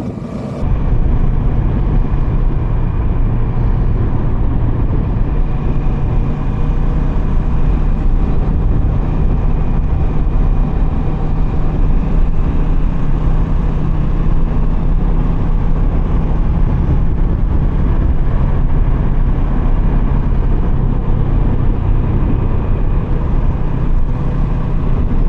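Kawasaki Versys 650's parallel-twin engine running at a steady cruise on the road, with heavy wind rumble on the microphone; the sound jumps louder about half a second in.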